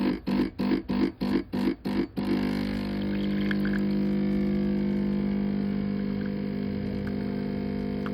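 Espresso machine pump pulsing about four times a second, then about two seconds in settling into a steady buzz as it runs continuously, with a few faint ticks over it.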